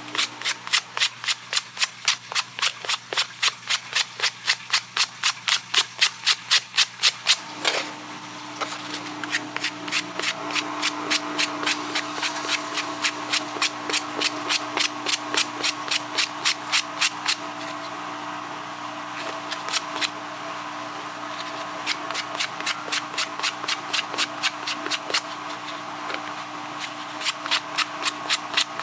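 Rapid back-and-forth rubbing strokes, about four to five a second, as the edge of a homemade gas cap gasket is worked down by hand. The strokes are loudest for the first seven or so seconds, then go on more softly and in spells.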